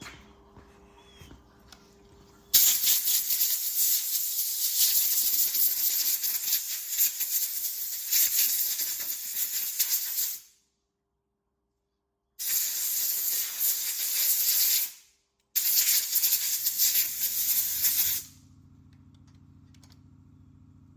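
Compressed-air blow gun hissing loudly in three blasts, one long of about eight seconds and then two short ones, each starting and stopping sharply: blowing a freshly washed part clean and dry.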